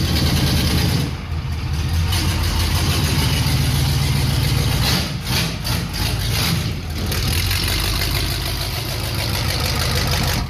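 Diesel pickup truck engine running loud and steady, with heavy low rumble, and a brief dip in level about a second in.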